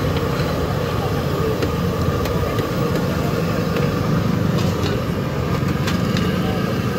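Steady din of a busy roadside food stall with voices in the background, and several light clinks of steel bowls and utensils being handled.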